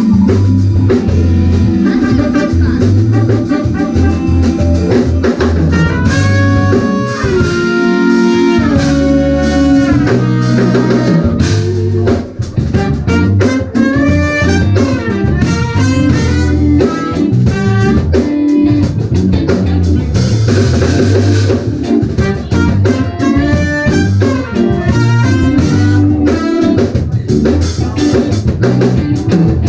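Live jazz-fusion band playing: drum kit and electric bass keep a steady groove under keys, with a lead melodic line that bends and slides in pitch over them.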